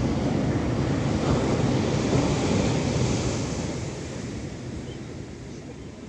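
Ocean surf breaking on a sandy beach: a loud crash of a wave and hiss of its foam, fading away after about four seconds as the wash spreads up the sand.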